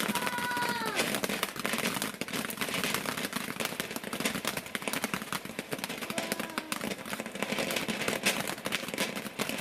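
Spinkle fountain firework burning, with a dense, unbroken crackle of spitting sparks.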